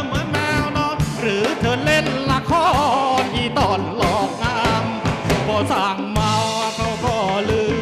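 Live rock band music: a drum kit keeps a steady beat with cymbal hits, under a bass line and a wavering, bending lead melody.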